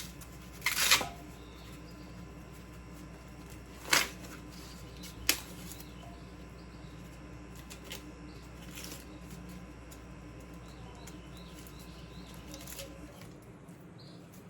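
Dry corn husks rustling and crackling in short bursts as they are handled: three louder ones in the first half, fainter ones later, over a steady low hum.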